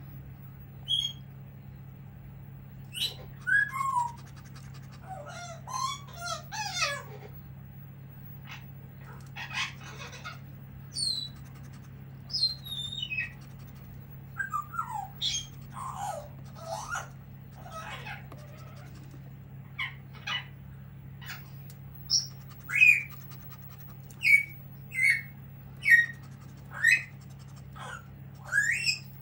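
Pet parrot squawking and whistling: short, shrill calls at irregular intervals, many sliding down in pitch, the loudest coming in the last several seconds.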